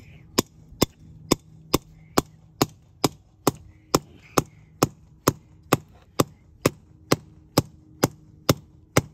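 A rubber mallet striking the head of a steel breaker bar, driving it down into hard-packed dirt: a steady run of sharp blows, a little over two a second, about twenty in all.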